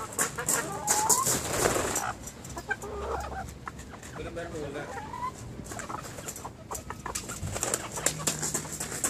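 Chickens clucking in short calls, mixed with scattered sharp clicks and knocks.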